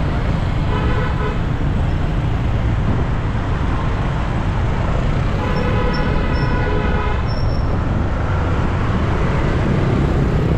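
Road traffic with a steady low rumble, and vehicle horns sounding: a short toot about a second in and a longer one around the middle.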